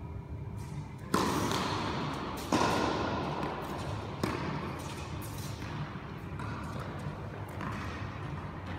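Tennis ball struck by a racket and bouncing on a hard indoor court: a few sharp knocks, the loudest about a second in and again about two and a half seconds in, a smaller one near four seconds, each ringing on in the echo of the large hall.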